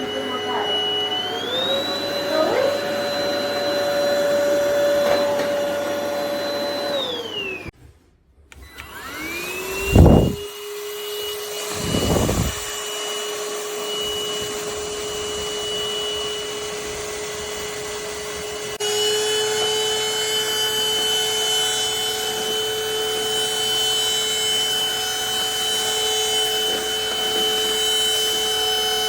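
Cordless stick vacuum cleaner running with a steady high whine. About a second in it steps up to a higher speed. It switches off about seven seconds in and starts again with a rising whine, with two loud low thumps soon after.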